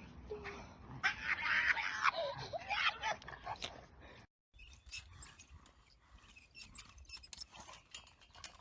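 A pet's voice in a few pitched calls that bend up and down, lasting about two and a half seconds. After a sudden cut come scattered light clicks and taps.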